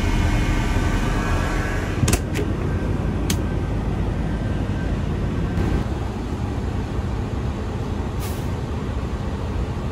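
Coach bus engine idling with a steady low rumble. A few sharp clicks come about two to three seconds in, and a short air hiss about eight seconds in.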